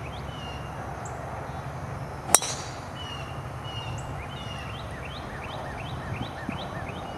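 A golf club strikes the ball on a full swing about two seconds in, one sharp ringing crack that is by far the loudest sound. Birds chirp throughout, with a quick run of short rising chirps in the second half.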